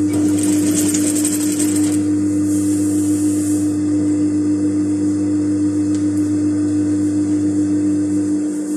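Steady hum of a JUKI industrial sewing machine's running motor, with fabric rustling at times as it is turned and worked by hand at the needle. The lower part of the hum drops away near the end.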